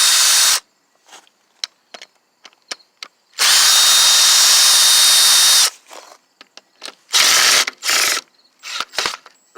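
Electric drill driving a socket to unscrew a scooter's body panel bolts, running in bursts with a steady motor whine: a run that stops just after the start, a longer one of about two seconds a few seconds in, and two short ones near the end. Small clicks and taps sound between the runs.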